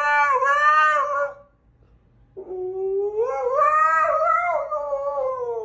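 Husky howling ("singing") on command: one howl trails off about a second and a half in, and after a short pause a second howl starts low, rises and wavers.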